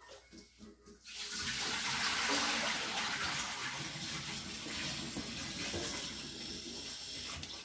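A steady rushing hiss, water-like, as of a tap running, starting about a second in and stopping abruptly near the end.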